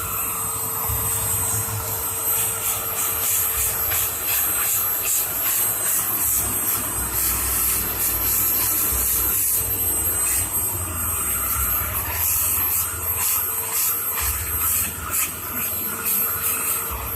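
Vacuum cleaner running steadily, a constant motor whine over the hiss of the suction, with the level shifting a little as the cleaner is moved.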